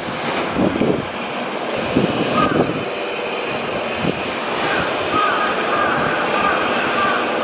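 Kobe Municipal Subway train running, a steady rumble and hiss. From about halfway in, a warbling electronic tone repeats about twice a second over it.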